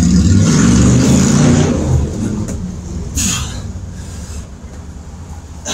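Wind buffeting the microphone, a loud, uneven low rumble that eases after about two seconds. A short hiss comes about three seconds in.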